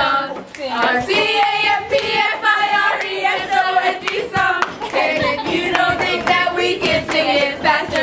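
A group of young voices singing a call-and-response camp chant together, with hand claps running through it.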